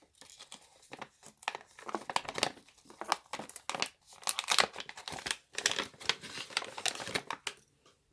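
Plastic packaging bag crinkling and tearing as it is pulled open by hand, in quick irregular crackles.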